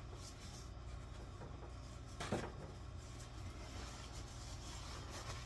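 Quiet room with a steady low hum and a few soft handling and rustling noises, the clearest a short scrape about two seconds in.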